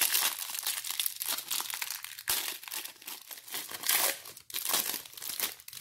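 Clear plastic wrapper on a stack of trading cards crinkling and tearing as it is pulled off by hand, a dense run of crackles.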